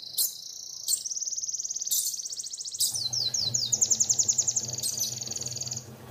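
Domestic canary singing: fast, high trills of rapidly repeated notes, with a few quick falling notes about three seconds in, then a longer trill that stops near the end.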